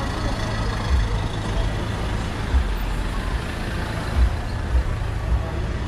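A van's engine running, a steady low rumble over general street noise, with a few short low thumps.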